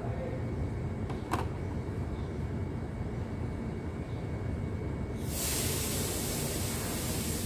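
Steady low rumble of workshop background noise with a single sharp click about a second in. About five seconds in, a loud steady hiss starts suddenly and keeps going.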